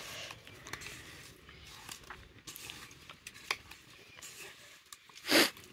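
Soft wet squelching and light clicks as raw fish pieces are squeezed and turned by hand in a steel bowl, with one short, louder rasp of noise near the end.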